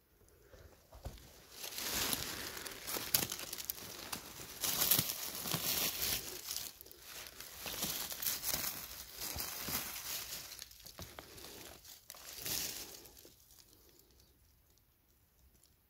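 Dry fallen leaves rustling and crackling in irregular bursts as the leaf litter is disturbed and brushed aside around porcini, dying away near the end.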